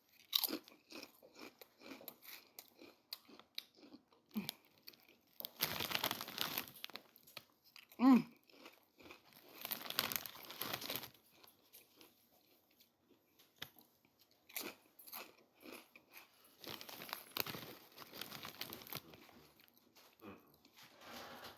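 A person biting into and chewing crisp Utz fried dill pickle potato chips, with close crunches in bursts and quieter gaps between.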